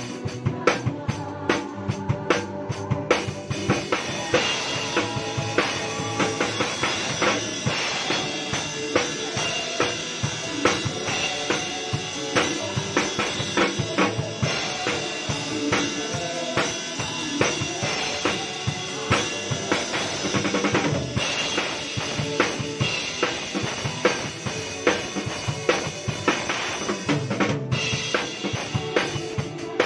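Acoustic drum kit played in a continuous steady groove: snare and cymbal strokes over the bass drum.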